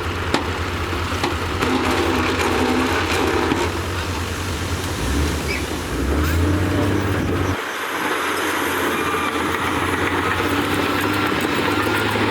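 Diesel engines of heavy earth-moving machinery running steadily, with scattered clanking. About two-thirds of the way through, the low engine sound changes abruptly.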